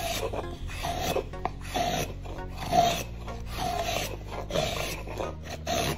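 Drawknife shaving a wooden blank, one scraping stroke about every second, each opening with a brief squeak.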